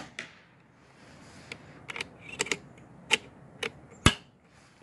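RTI Priest .25 PCP air rifle being cycled and fired: a string of sharp mechanical clicks from the action as the next slug is chambered, then one loud sharp crack about four seconds in.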